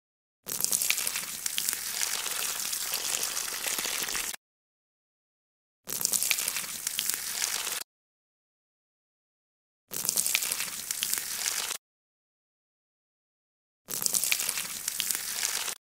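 Cartoon sound effect of a dog peeing against a tree: a hissing, splashing stream heard four times, in bursts of about two to four seconds that start and stop abruptly, with silence between.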